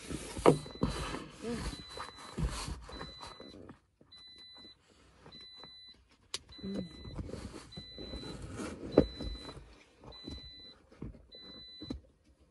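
A faux leather seat cover is pulled and tugged over a car's front seat, with rustling, rubbing and a few thumps. Under it, the car's warning chime beeps steadily about once a second.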